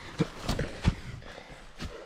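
Footsteps and four sharp thumps as a person clambers through dense jungle undergrowth, with rustling of leaves and branches around them.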